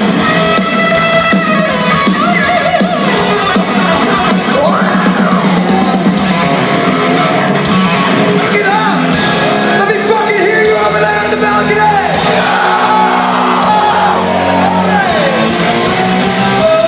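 Glam-metal band playing live at full volume: distorted electric guitars with bending notes, drums and bass under singing and shouted vocals, recorded from within the crowd in a large hall.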